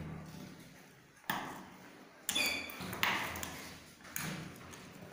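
Four sharp knocks and clatters of circuit boards and tools being handled on a workbench, one with a brief metallic ring.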